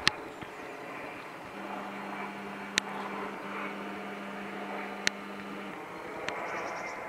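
Four-engine military jet flying over on approach, a steady jet rumble. A steady low hum joins for about four seconds in the middle, and there are three sharp clicks.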